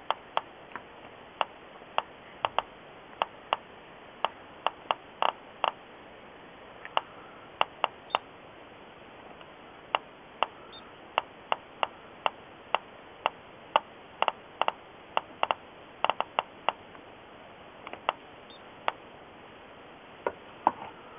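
Geiger counter clicking at random intervals, about two sharp clicks a second, each click a detected ionising particle.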